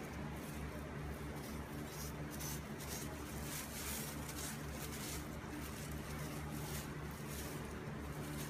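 Plastic grocery bag rustling and crinkling in short irregular bursts as a cat noses into it, over a steady low hum.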